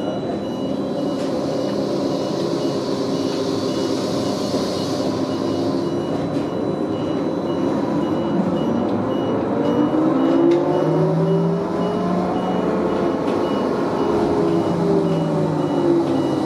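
Neoplan AN440LF-ETB electric trolleybus on the move, heard from inside the cabin: a steady running rumble, with the electric traction motor's whine rising and then falling in pitch in the second half. A faint, rapidly repeating high beep runs underneath.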